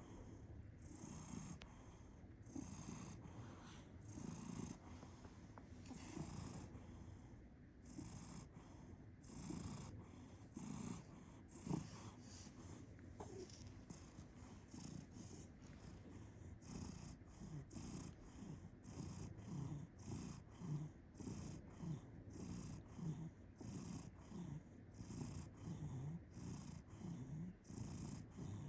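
A domestic cat purring and snoring at once, a soft rasping sound with each breath in and out. It goes in a regular rhythm that becomes more even in the second half.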